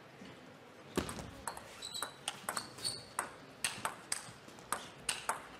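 Table tennis rally: the ball clicking sharply off the rackets and the table in quick alternation, about three to four hits a second, starting about a second in.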